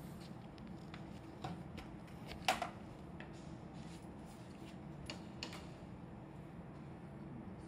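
A few light clicks and knocks from a power cord being handled and pulled across to an outlet, the loudest about two and a half seconds in, over a steady low hum.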